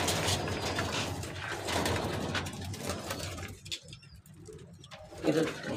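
Domestic pigeons cooing in a loft, a low murmur with scattered small clicks, dropping quieter a little past halfway.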